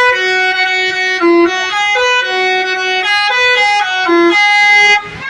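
Basuri musical vehicle horn playing a fast melody of short and held notes that step up and down, cutting off suddenly near the end.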